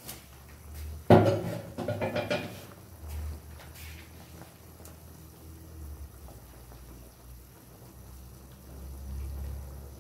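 Pot of soup boiling hard on a gas burner, a steady low rumble. About a second in, a sharp clatter of a utensil on metal that rings out briefly.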